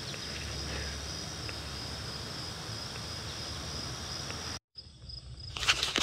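Steady high-pitched chirring of insects over a faint low hum. It cuts out briefly near the end, then a rubber roof gasket crackles and tears as it is peeled away from its adhesive.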